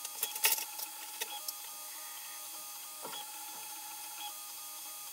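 Creality Ender 3D printer printing a first layer: its stepper motors whine in steady tones that step between pitches as the print head moves. There are several short clicks in the first second and a half and a quick sweep about three seconds in.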